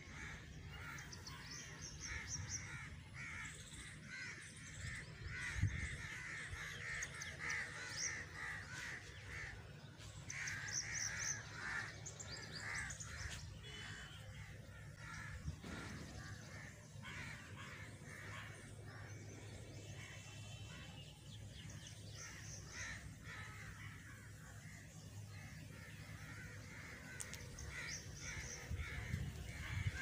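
Crows cawing repeatedly in bouts of harsh calls with short lulls between, over a steady low background rumble.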